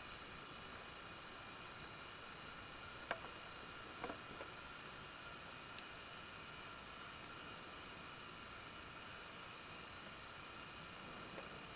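Faint steady hiss and a high pulsing whine from a 1998 Sony Handycam's own tape mechanism, with a few small handling clicks about three and four seconds in.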